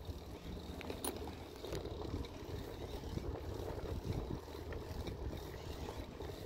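Steady low rumble of a 29-inch SE Big Ripper bike rolling on pavement, with wind on the microphone and a sharp click about a second in.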